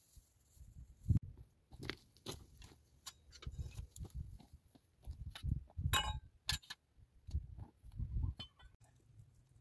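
Footsteps crunching and scuffing on stony, gravelly ground, with the knocks and clinks of a metal pan and a small digging tool being carried. The clearest metallic clink comes about six seconds in.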